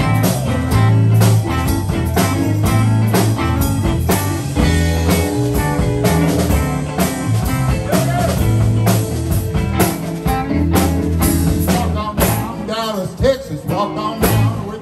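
Live electric blues band playing: electric guitars and bass over a steady beat, with notes bending in pitch near the end.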